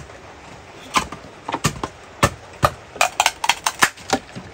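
A series of sharp knocks, irregular at first and then a quick run of them about three seconds in.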